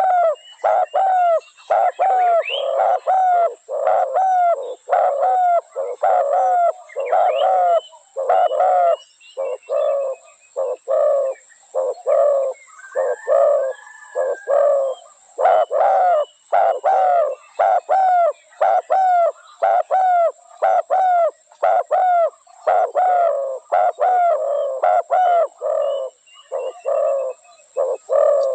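Spotted doves cooing: a steady series of short, low coo notes, about two a second, in phrases broken by brief pauses. Faint high twittering comes in now and then.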